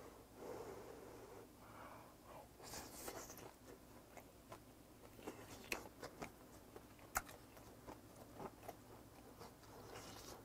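Faint close-mouthed chewing of a mouthful of grilled pork belly with mustard-leaf kimchi: soft crunching and wet mouth noises, with a couple of sharper clicks midway.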